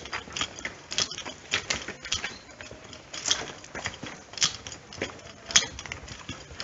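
Footsteps on a gritty asphalt lane at a steady walking pace, about two crisp, scuffing steps a second.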